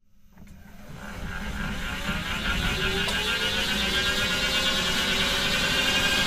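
Electric motor whine rising slowly in pitch as a Tesla wheel hub and brake disc spin up, fading in from silence and growing steadily louder over a low hum.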